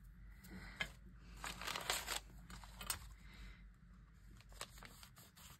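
Paper and card being handled on a craft table: soft rustling with a few light taps and scrapes.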